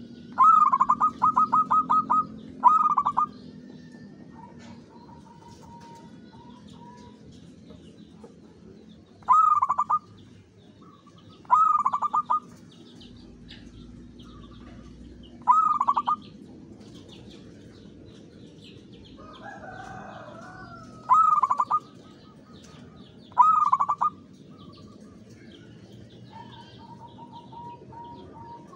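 Zebra dove (perkutut) singing: seven cooing phrases, each a quick stutter of repeated notes. The first, near the start, is the longest at about two seconds. Faint chirping of other small birds runs underneath.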